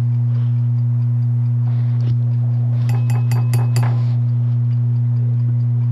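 A loud steady electrical hum, and about three seconds in a quick run of about six light glassy clinks lasting under a second: a measuring spoon tapping against a glass mixing bowl as oil is tipped in.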